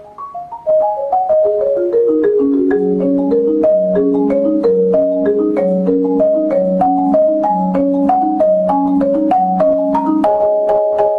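Background music of quick, struck marimba-like mallet notes in a fast repeating pattern, with a lower line joining about three seconds in. Near the end it shifts to repeated chords.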